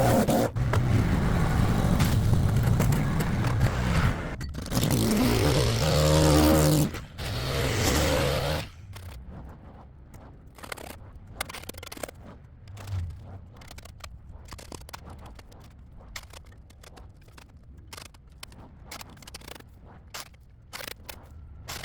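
A loud machine runs for about the first eight seconds and then cuts off, leaving a run of irregular scraping strokes, like a tool scraping dirt and debris off a concrete sidewalk.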